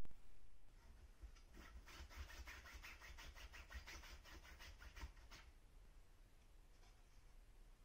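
A dog scratching: a quick, even run of soft scratches, about six or seven a second, beginning about a second and a half in and stopping after about four seconds.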